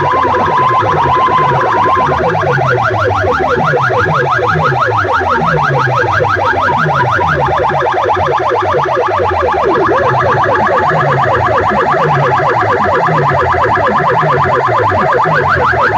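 Electronic competition track blasted through big sound-box loudspeaker rigs: a fast, repeating siren-like sweep over a heavy, steady bass beat.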